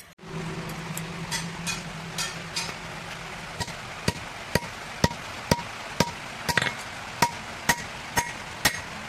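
A blacksmith's hammer strikes steel on an anvil while forging a sickle blade, each blow ringing. The first few strikes are light and uneven; from about three and a half seconds in, loud blows come in an even rhythm of about two a second. A steady low hum sits under the first few seconds.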